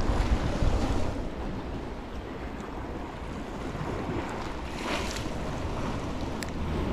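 Sea surf washing around a rocky outcrop, with wind buffeting the microphone, strongest in the first second; a brief louder rush of water comes about five seconds in.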